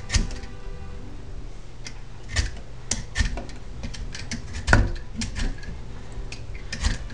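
Vegetable peeler scraping strips of skin off a butternut squash in short, irregular strokes, with one louder knock about two-thirds of the way through.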